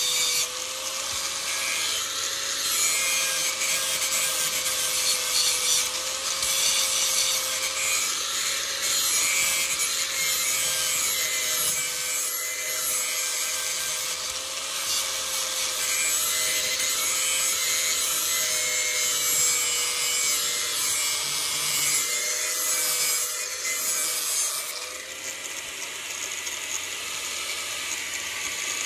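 Electric grinder running with a steady whine while a knife blade is held against the wheel, giving a continuous hissing grind. The grind eases and gets quieter about 25 seconds in.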